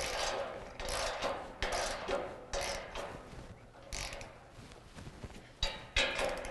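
Hand socket ratchet wrench clicking in a series of short strokes, with pauses between them, as half-inch bolts are tightened into a steel workbench frame.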